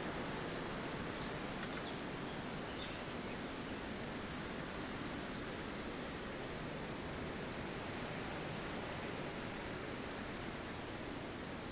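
Wind rushing steadily through forest trees, an even rustling noise with no gusts standing out. A couple of faint high chirps come through about two to three seconds in.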